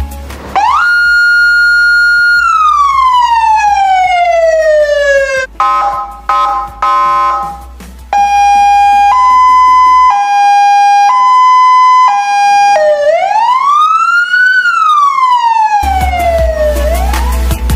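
A Senken YD-100-30 100 W siren loudspeaker plays a run of siren tones. First comes a wail that rises, holds and slowly falls. Then a few seconds of short, choppy tones, then a two-tone hi-lo alternating about once a second, then another rise-and-fall wail. Background music with a bass beat comes back near the end.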